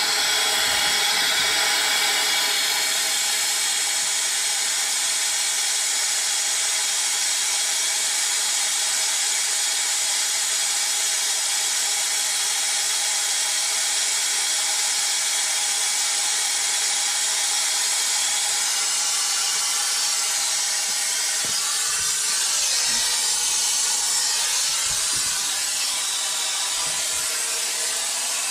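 Air-driven venturi vacuum coolant-refill tool hissing steadily as shop compressed air rushes through it, pulling a vacuum on the truck's cooling system ahead of a vacuum refill.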